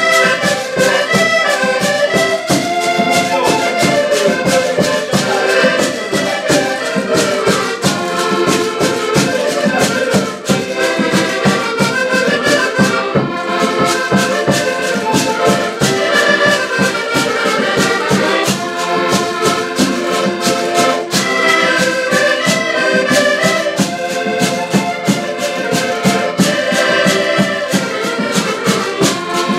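Several diatonic button accordions playing a traditional Portuguese folk tune together, with a steady, quick beat.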